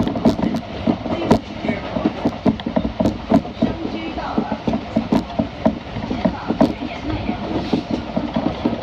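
Kintetsu electric train heard from inside the carriage while running: a steady low rumble of the wheels and running gear under a quick, irregular string of clacks as the wheels pass over rail joints.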